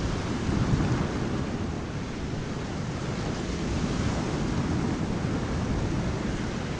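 Ocean surf: a steady rushing wash of waves, heaviest in the low end.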